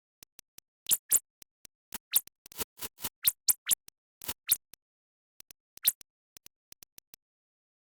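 An irregular series of sharp clicks and short scratchy strokes, some loud and some faint, with dead silence between them.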